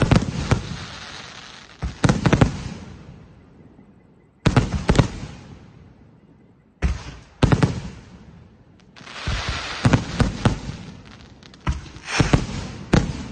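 Aerial firework shells bursting in a show: a run of sharp bangs about every one to two seconds, each trailing off in a fizzing crackle of falling stars, with a denser cluster of bangs around ten seconds in.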